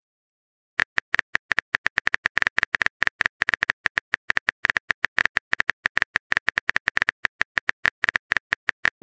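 Simulated phone-keyboard typing sound from a texting app: a rapid run of short, identical clicks, one per letter typed, starting about a second in.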